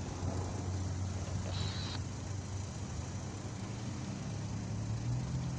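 Road traffic: cars driving over the railroad crossing with a steady low engine and tyre hum. In the second half a car's engine tone comes in close as it passes.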